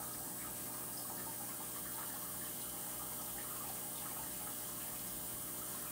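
Aquarium filter running: a steady trickle of water over a low, even hum.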